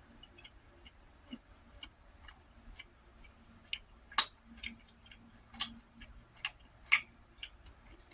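Irregular sharp clicks and smacks of someone eating a sticky bagel, with a few louder ones in the middle, over a faint steady hum.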